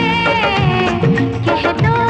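Bollywood film song music: a held, slightly wavering melody line over a repeating bass beat.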